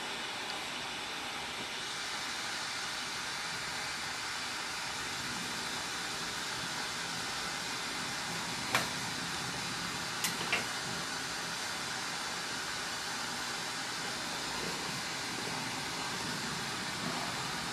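Lampworking bench torch burning with a steady hiss while glass is worked in its flame. About halfway through there are three sharp clicks, the last two close together.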